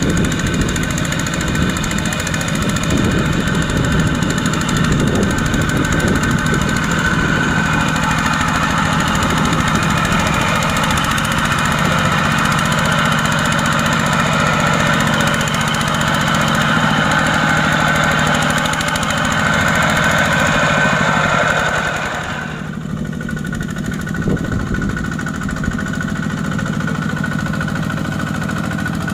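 Two-wheel walking tractor's single-cylinder diesel engine running hard, hauling a loaded rice trailer through deep mud. About 22 seconds in the sound drops abruptly and continues a little quieter.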